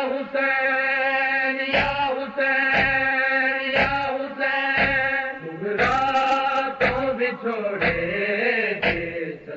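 A group of male reciters chants a Punjabi noha without instruments. They hold long steady notes at first, then a melody rises and falls from about six seconds in. Thumps about once a second keep time, typical of matam (rhythmic chest-beating).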